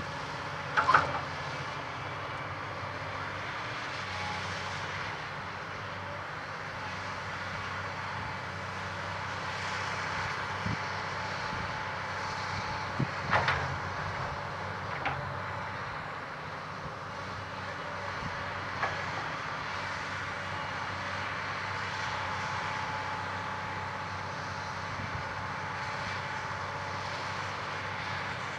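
Hyundai 210LC-9 crawler excavator working: its diesel engine and hydraulics give a steady drone, broken by a few sharp clanks from the bucket and boom, the loudest about a second in and again about thirteen seconds in.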